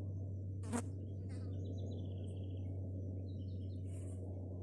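Outdoor background: a steady low hum and noise, with a few short, faint bird chirps and one sharp click under a second in.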